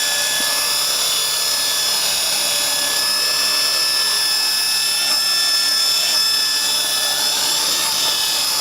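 T-Rex 450 electric RC helicopter's motor and rotors running with a steady high whine as it is flown in to land.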